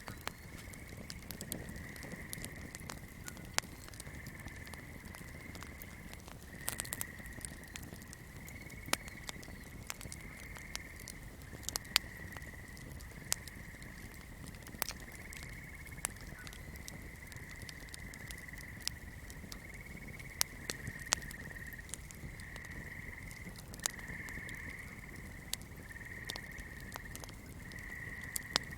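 Swamp ambience: a steady, high-pitched chorus of calling animals that swells in short phrases, with irregular sharp crackles and pops from a fire.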